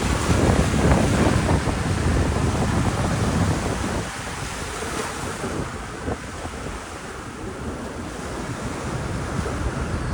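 Ocean surf breaking and washing onto a sandy beach, with wind buffeting the microphone. The wash is strongest for the first few seconds, eases off, then builds again near the end.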